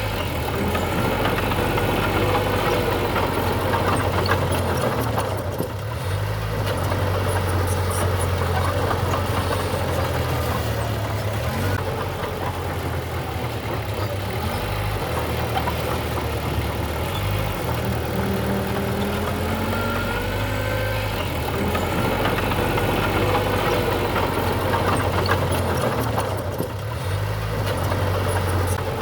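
Diesel engine of a small Mitsubishi BD2G crawler bulldozer running steadily at work, with a few short squeaking glides rising and falling over it.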